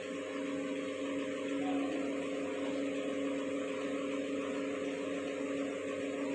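A steady machine hum with a few constant tones over a low hiss, unchanging throughout.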